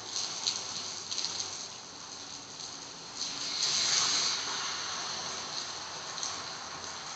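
Heavy rain hissing steadily on a flooded road, with a car's tyres swishing through the standing water, louder for about a second some three and a half seconds in.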